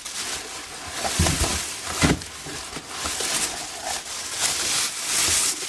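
Thin plastic bag rustling and crinkling as it is grabbed and pulled out of a cardboard box, with a few dull knocks from about one to two seconds in.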